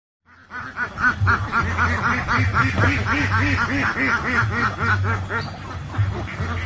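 A flock of domestic ducks quacking, many overlapping quacks in a rapid, continuous chatter that starts about half a second in after a brief silence.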